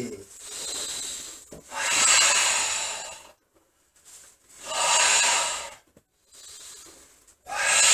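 Forceful Sanchin-kata breathing by karateka: long hissing breaths, two loud ones in the middle with softer breaths between them and another loud one starting near the end.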